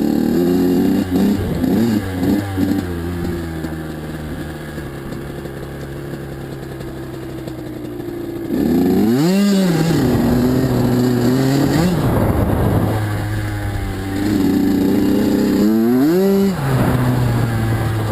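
Kawasaki KX85 two-stroke single-cylinder dirt bike engine running under way. It sits at low revs at first, then the throttle is opened about halfway through, and again near the end, sending the pitch quickly up before it holds and drops back.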